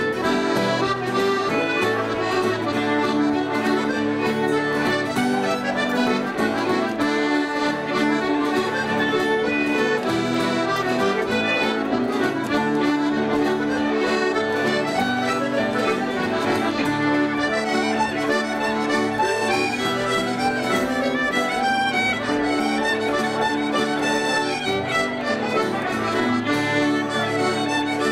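Irish traditional music played by a pub session: a piano accordion and a button accordion carry the tune together over acoustic guitar, at a steady level with no pauses.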